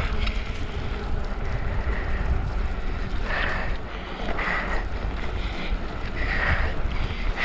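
Wind buffeting the microphone, a steady low rumble, with a few short hissing rushes about three, four and a half and six seconds in.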